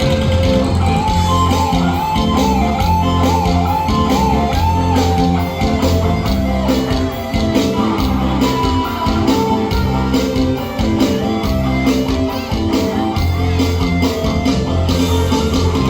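Music with a steady beat, with a wavering high melody line in the first few seconds.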